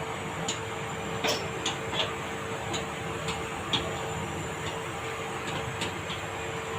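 Light, irregular clicks and taps from mixing marinated chicken 65 pieces in a bowl, over a steady background hum.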